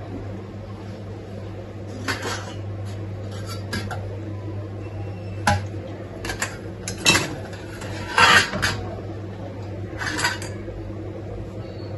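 Steel kitchen utensils and dishes clinking and clattering several times, the loudest about eight seconds in, over a steady low hum.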